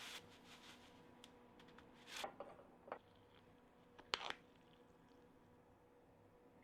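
Near silence: room tone with a few faint, short clicks and rustles of handling, about two seconds in, near three seconds, and around four seconds.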